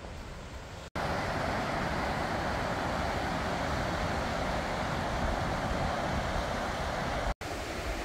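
Mountain river rushing over rocks, a steady loud noise of water, with wind rumbling on the microphone beneath it. The sound drops out for an instant about a second in and again near the end, and is louder between the two drops.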